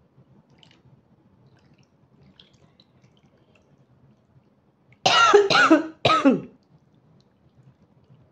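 A person coughing a few times in quick succession about five seconds in, each cough starting abruptly.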